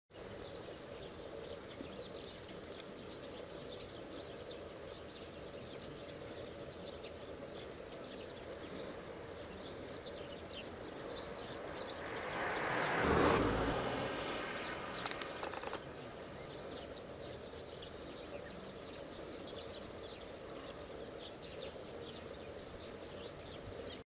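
Open-air ambience over a mudflat: a steady background hiss with faint, scattered bird chirps. A vehicle passes a little past halfway, a rush that swells and fades over about four seconds. A single sharp click follows just after.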